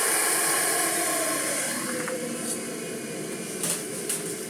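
Miele Blizzard CX1 bagless vacuum cleaner's motor running with a high whine, then dropping in pitch and level about two seconds in. A couple of short clicks from the machine being handled near the end.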